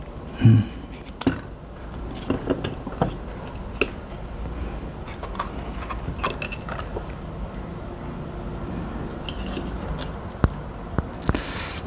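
Irregular light clicks, taps and knocks of small plastic and metal mouse parts being handled and fitted together during reassembly.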